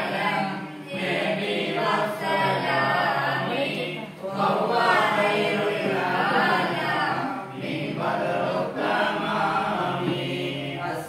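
Group of men chanting a Mawlid recitation together, devotional verses sung in long phrases with brief breaks between them.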